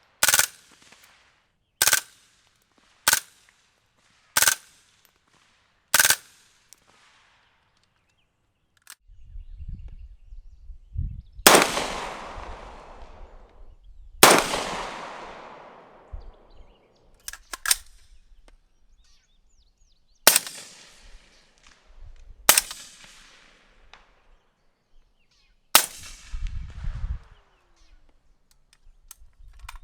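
Suppressed gunshots: a quick string of five sharp shots about a second apart, then after a pause five more shots a few seconds apart, each with a longer echoing tail.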